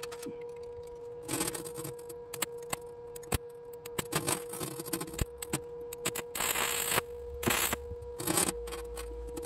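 Stick (arc) welder striking and crackling in several short bursts as a rebar leg is tack-welded on, the longest burst about half a second, mostly in the second half. Sharp clicks of the electrode tapping the steel come between them, over a steady hum.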